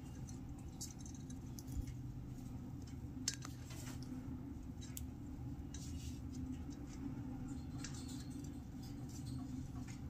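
Sun conures' beaks and feet scratching, nibbling and clicking on a hanging woven-fibre nest ball: irregular small clicks and scrapes over a steady low background hum.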